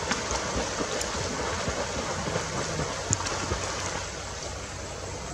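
Steady splashing of river water as a child swims with kicking strokes and others wade through it.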